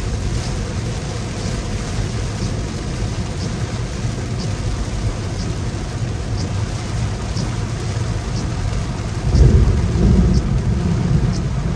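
Heavy rain pouring on a moving car, heard from inside the cabin, with a steady low rumble of rain and road noise and a faint swish about once a second. A deeper rumble swells about nine seconds in.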